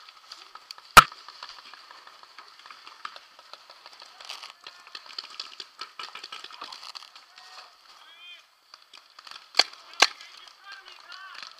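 Paintball markers firing: one sharp, loud pop about a second in and two more pops half a second apart near the end, over faint scattered popping from other markers across the field. Faint distant voices in the background.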